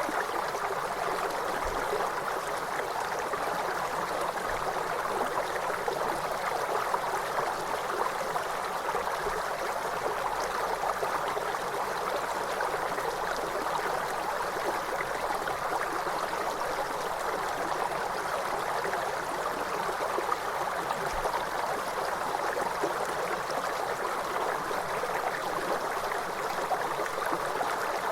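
River water flowing steadily: an even, unbroken rushing.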